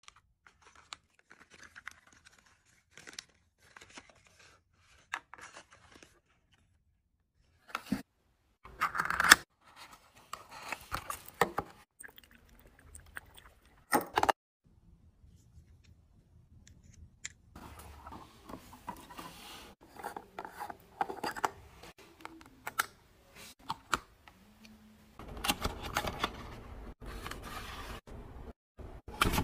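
Paperboard carton being handled and opened by hand, and a plastic squeeze tube slid out and handled. The sound is scattered rustles, scrapes and small clicks, with a few sharp, louder snaps of the card, and denser rubbing and crinkling in the latter half.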